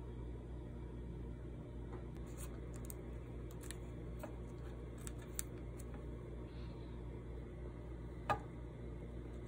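Light clicks and rustles of a hand picking up and handling pieces of dried sweet potato on a paper towel over a metal tray, with one sharper tap about eight seconds in, over a steady low hum.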